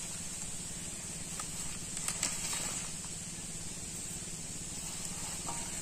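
Steady outdoor background hiss with a faint high steady tone. About two seconds in come a few soft knocks as things are set down on a woven palm-leaf mat.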